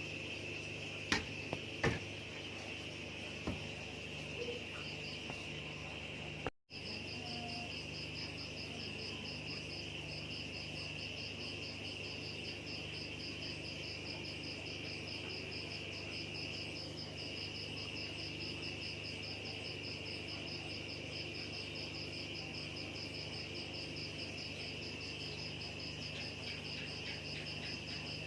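Crickets chirping steadily: a continuous high-pitched chirring, joined after a brief dropout by a fast, evenly pulsing trill. A few sharp clicks sound in the first few seconds.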